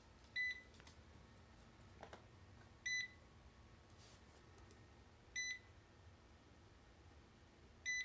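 Robot vacuum cleaner giving a short electronic beep, repeated four times at an even pace of about one every two and a half seconds.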